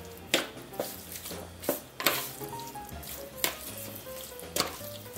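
Raw chicken thighs being stirred in olive oil, minced garlic and herbs on a plate: a wet, squelchy mixing noise broken by irregular sharp clicks against the plate.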